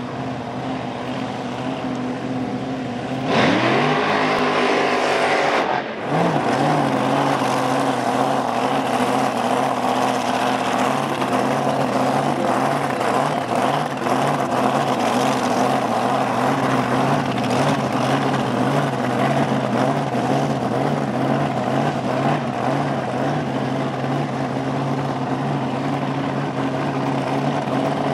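Supercharged dragster engine idling. About three seconds in it revs up hard and holds high for a couple of seconds, then drops sharply back to a rhythmic, loping idle.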